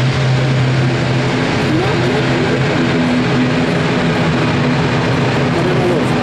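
Jet airliner engines running loud and steady, a strong low hum under a wash of noise with wavering higher tones.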